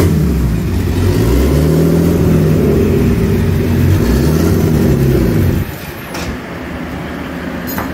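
Turbocharged BMW 323i straight-six revved up and down a few times, the pitch rising and falling in arcs, then dropping back to a lower steady running sound about two thirds of the way through.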